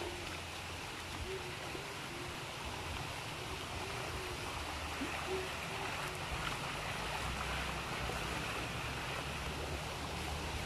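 Steady rush of running creek water, with faint short low notes repeating through the first half.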